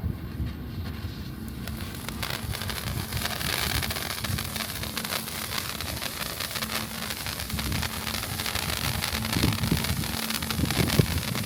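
Handheld cold-spark firework stick burning with a steady hiss and fine crackle that builds up about two seconds in, with wind rumbling on the microphone.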